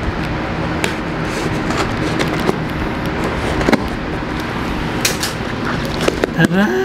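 Scissors cutting and scraping through packing tape on a cardboard box, with short snips and scrapes over a steady background rumble. Near the end a rising tone comes in.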